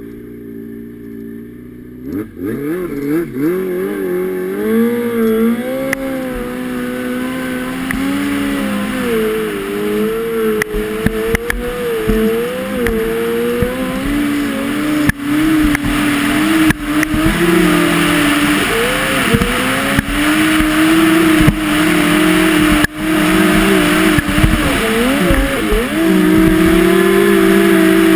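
Yamaha Apex four-cylinder four-stroke snowmobile engine idling, then revving up about two seconds in and pulling hard as the sled climbs, its pitch rising and falling with the throttle before settling into a steady high run near the end.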